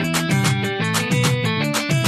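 Live band music with a steady beat and a melody of short repeated notes, in an instrumental passage without vocals.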